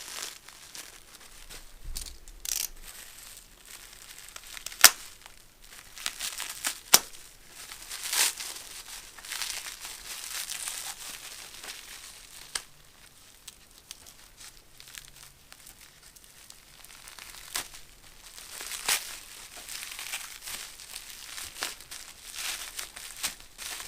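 Packaging being handled during unboxing: irregular crinkling and rustling of wrapping, with a few sharp clicks or knocks, the loudest about five and seven seconds in.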